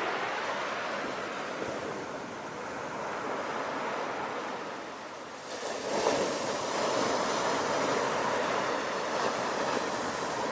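Sea waves running onto the shore as steady surf wash. A little past halfway a wave breaks, and the rush of foaming water swells louder.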